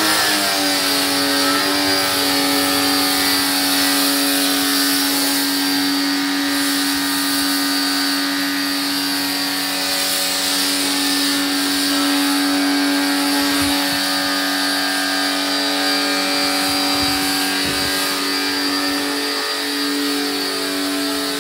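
STARQ ST1800U 1800-watt electric pressure washer with a universal motor, running steadily while it sprays shampoo foam through a snow-foam lance. It gives a high motor whine over the hiss of the spray, winding up to speed in the first second and winding down as it stops at the very end.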